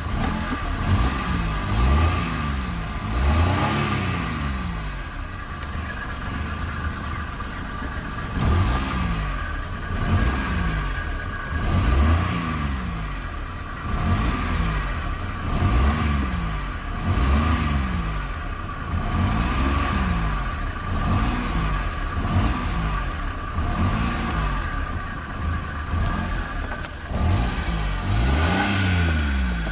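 Small car engine revved in repeated blips of the accelerator pedal, pitch rising and falling about once every one and a half to two seconds. A few seconds in it settles to a lower, steadier idle before the pumping resumes.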